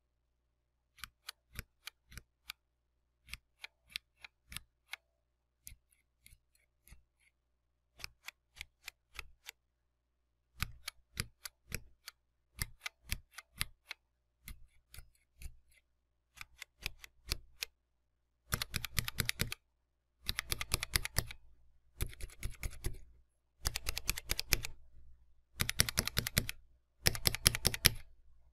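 Mechanical keyboard switches being pressed: single key presses and small groups of clicks for the first eighteen seconds or so, then fast runs of typing in bursts about a second long with short pauses between them.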